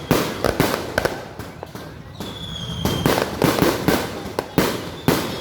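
Fireworks bursting in rapid, irregular bangs, with a high whistle lasting under a second about two seconds in.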